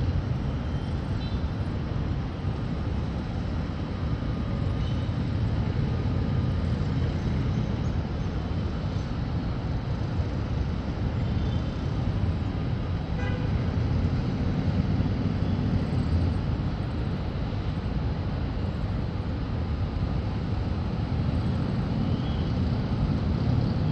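Steady, diffuse hum of city traffic rising from the streets far below.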